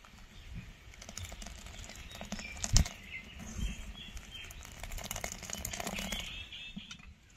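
Metal ladle stirring thick milky sago pudding in a metal pan, clicking and scraping against the pan, with one sharper knock about three seconds in.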